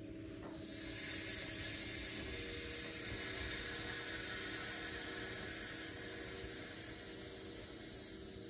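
A long exhaled 'sss' hiss, the Qi Gong healing sound for the lungs, drawn out on one breath. It starts about half a second in and fades slightly near the end.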